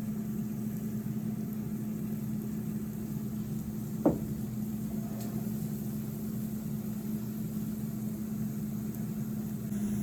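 Steady hum of a running kitchen appliance's fan and motor, with a single sharp knock about four seconds in.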